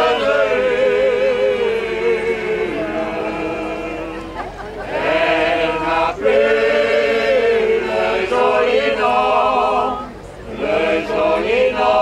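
A choir singing long, held phrases with vibrato, breaking off briefly about four and a half, six and ten seconds in.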